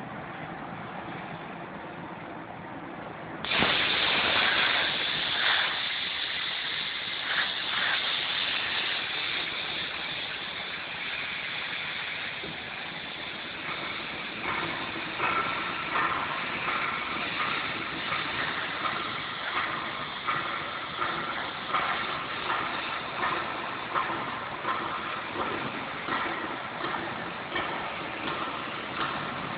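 CNC sheet-metal V-groove machine running, with a loud hissing, mechanical noise that starts abruptly a few seconds in. From about halfway on it pulses regularly about once a second.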